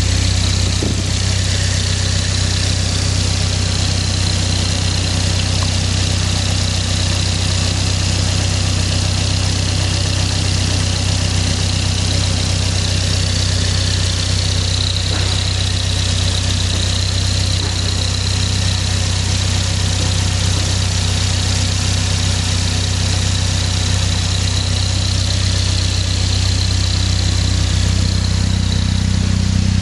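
Twincharged Toyota twin-cam four-cylinder engine idling steadily, with a high whine running over the idle.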